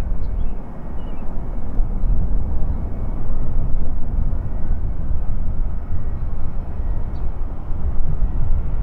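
Lockheed ER-2's single General Electric F118 turbofan running at idle while the aircraft holds on the runway: a steady low rumble with a faint whine above it.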